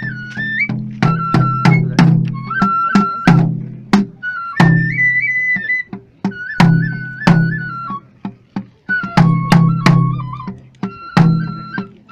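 Shinto ritual dance music. A flute plays an ornamented melody that moves in small pitch steps, over frequent sharp drum strokes and a heavy low drum resonance.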